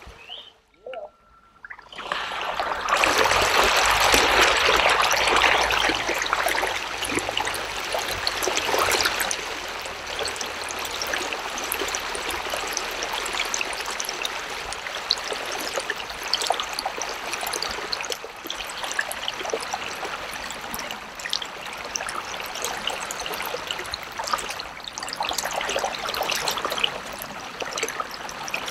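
Flowing river water: a steady trickling rush that starts about two seconds in, after a brief quiet.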